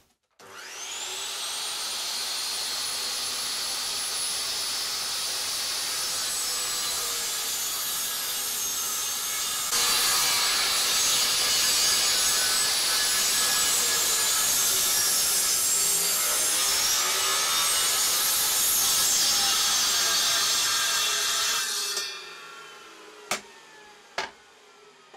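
Electric mitre saw spinning up with a rising whine, then running steadily as it bevel-cuts a chamfer across the end of a piece of CLS softwood, the pitch sagging briefly mid-cut. It is switched off near the end and winds down, followed by a few knocks of wood being handled.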